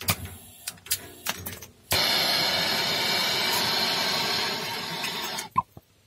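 Hand-held gas brazing torch: a few sharp clicks of its igniter, then about two seconds in a steady loud hiss of the torch that runs for some three seconds and stops.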